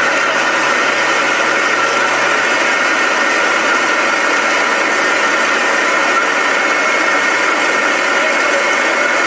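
Steady, even roar of a large fire from a film soundtrack, played through loudspeakers.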